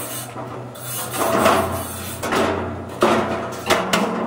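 Welded steel sheet-metal panel being handled on a brick floor: scraping and rasping, then sharp knocks about three seconds in and again twice near the end.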